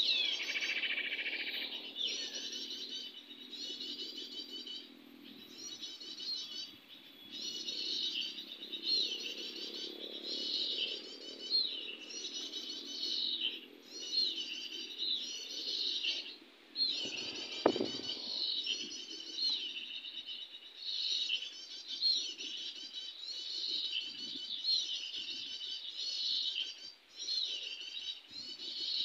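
Small songbirds singing continuously in rapid, repeated high chirping phrases, each about half a second to a second long. A single sharp knock sounds a little over halfway through.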